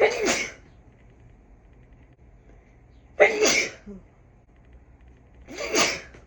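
A person sneezing three times, induced sneezes about three seconds apart. The first two start sharply; the last builds up more gradually before it breaks.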